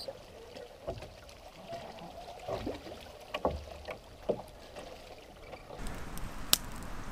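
Small waves lapping and sloshing at the shoreline in a few soft splashes. About six seconds in, this cuts to a campfire crackling with sharp pops.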